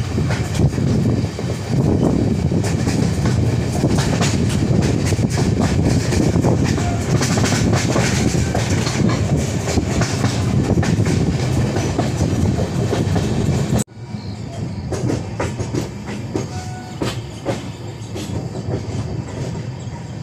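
LHB passenger coach running at speed, heard at an open door: a loud, steady rumble of wheels on rail with rapid clickety-clack. About 14 seconds in, the sound cuts abruptly to quieter running, with separate wheel clicks as the train curves over points.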